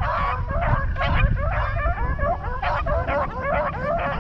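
A pack of rabbit dogs baying and yipping continuously, many overlapping voices, as they run a rabbit they have jumped.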